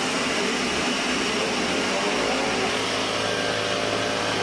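Band sawmill running, a steady loud mechanical noise with a faint steady hum joining about halfway through.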